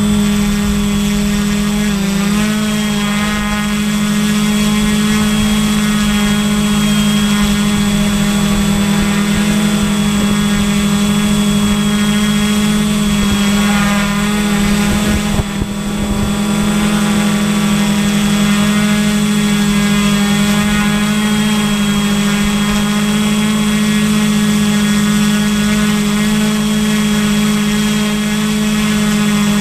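Small multirotor drone's electric motors and propellers running in a steady hover, heard from the camera mounted on the craft. The pitch wobbles slightly as it holds position, with a brief dip about halfway through.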